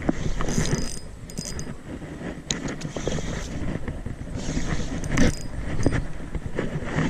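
A Daiwa spinning reel being cranked to wind in a hooked eel, with uneven mechanical clicking and scraping.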